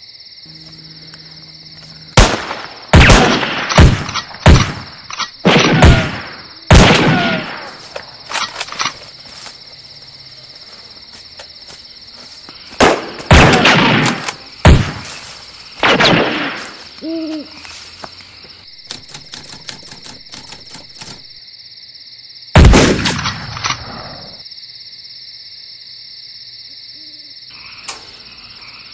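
Night ambience of insects chirping steadily, broken by loud gunshots in several clusters, each shot with an echoing tail. An owl hoots about halfway through.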